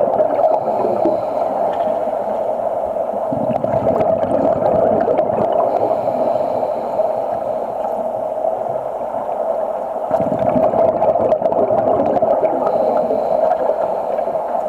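Broco exothermic cutting rod burning underwater: a steady crackling hiss with gurgling bubbles, and heavier rumbling surges about three seconds in and again about ten seconds in.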